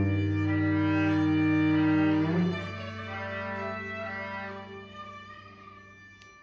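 Viola and cello playing long held notes in a free improvisation, over a low sustained cello note. About halfway through the upper notes shift and the sound fades away, the low note stopping just before the end.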